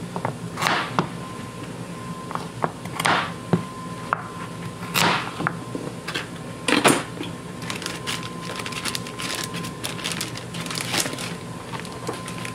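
Chef's knife chopping through carrot ends onto a plastic cutting board, several separate chops a second or two apart, followed by the crinkling rustle of a plastic zip-top bag as the pieces are dropped in.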